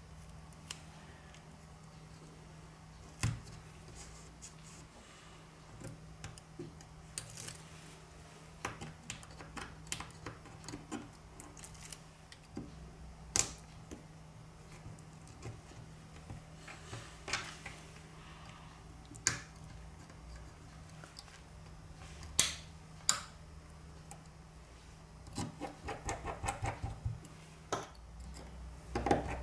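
Small clicks, taps and rubs of a smartphone being reassembled by hand, as the battery is laid into the frame and pressed down. A quick run of clicking taps comes near the end as a tool presses at the board.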